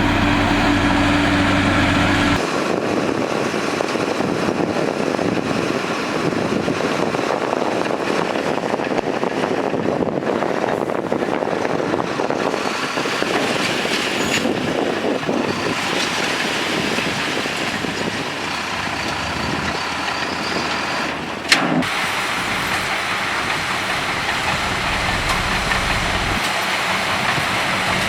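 Heavy diesel construction-machinery engines running. A steady, low idling hum changes abruptly about two seconds in to a rougher, noisier engine sound under load, with one sharp click a little past twenty seconds.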